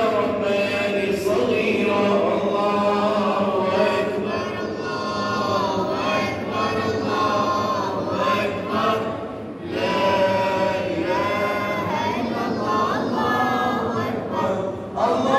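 A man singing an unaccompanied, melismatic Arabic religious chant, his held notes bending and ornamented, with short breaks about ten seconds in and near the end.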